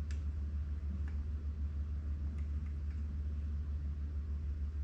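A steady low hum throughout, with a few faint, light clicks as the scooter's two handlebar cable connectors are handled and pushed together.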